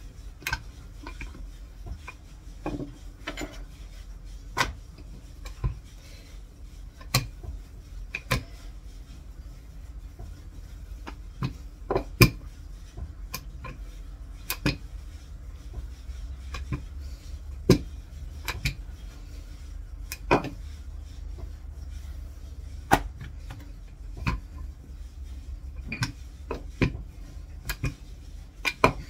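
Kitchen utensils clicking and knocking against dishes and a work surface as dough is worked, in scattered single strikes every second or so, over a low steady hum.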